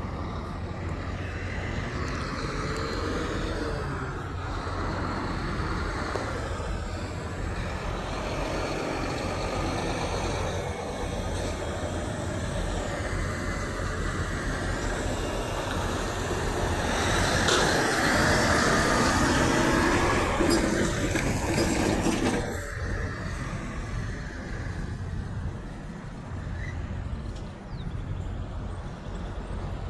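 Road traffic with semi trucks running past steadily. One passes close and loud for about five seconds a little past the middle.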